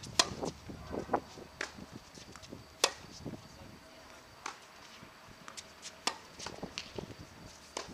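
Tennis balls struck by rackets and bouncing on a hard court during a ball-feeding drill: sharp pops at irregular intervals, the loudest just after the start and about three seconds in, with fainter ones between.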